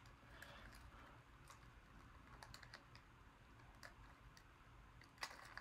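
Faint scattered clicks and scratches of fingers picking at the flap of a tiny cardboard toy cereal box, trying to open it without tearing it, with a slightly louder click near the end as it comes open.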